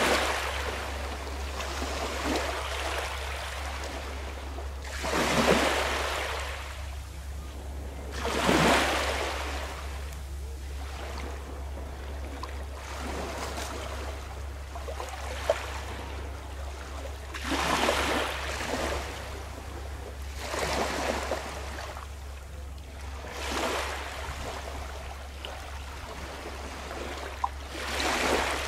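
Small sea waves washing in against the shore, each surge swelling and fading every few seconds, over a steady low rumble.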